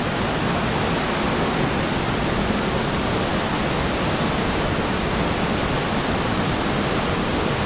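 Steady rush of water in a cave, a cave stream or waterfall, running loud and unbroken.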